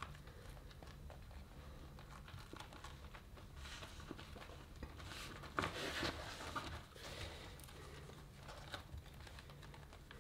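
Quiet crinkling and rustling of thin PVC inflatable vinyl as hands press and smooth it around a newly glued valve, busiest and loudest about halfway through.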